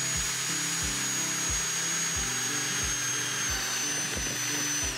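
Drill press motor running at speed with a steady high whine while its bit bores into a plywood block, cutting a hole for an M8 T-nut; the whine begins to fall as the drill is switched off at the very end.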